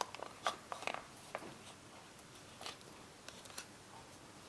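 Faint handling of a plastic remote-control handset as a silicone skin is pulled over it: scattered soft clicks and rubbing, busiest in the first second and a half, then a few more later.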